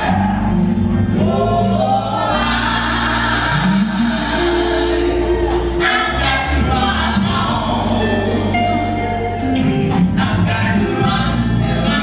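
Live gospel music: a vocal group singing together, backed by a band of electric guitar, bass, drums and keyboard.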